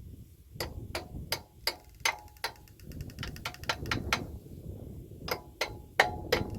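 Hammer striking steel over and over, knocking loose the pin that holds the Belarus 400A loader's hydraulic cylinder. The blows come in uneven bunches, each with a short metallic ring.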